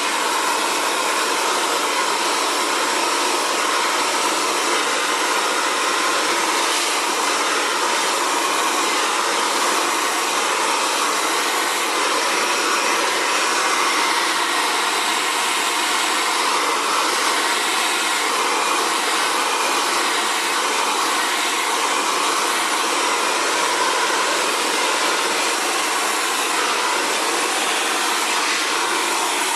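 Xtava Allure 2200-watt ionic ceramic hair dryer running continuously, a steady airy rush with no change in pitch or level.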